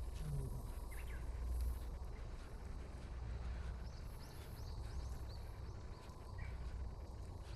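Outdoor ambience: a steady low rumble, with a run of short, high bird chirps about four to five and a half seconds in.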